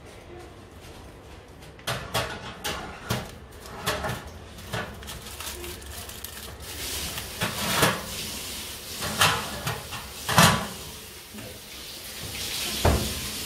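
Wire oven racks clattering and scraping as a foil-wrapped dish is slid into an oven, with a run of irregular metal knocks; the oven door shuts with a thud near the end.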